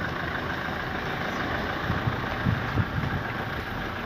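Wind rumbling on the phone's microphone, with a few low buffeting thumps around the middle.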